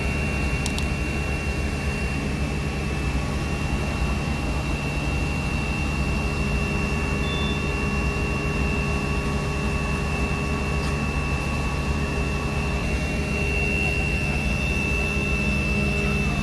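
Fire engines running and pumping water: a steady mechanical drone with a thin, high whine held over it.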